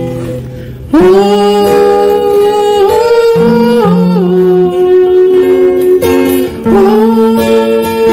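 Harmonica in a neck rack played over acoustic guitar. About a second in it comes in loud with long held notes that slide up into pitch, then bends between notes. It breaks off briefly near the end and re-enters with another upward slide.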